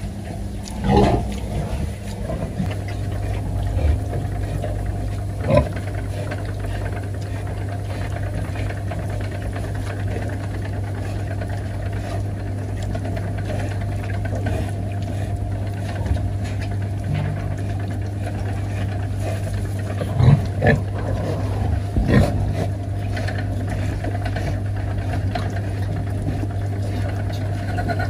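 A pen of young piglets giving a handful of short calls over a steady low mechanical hum, with three of the calls close together near the end.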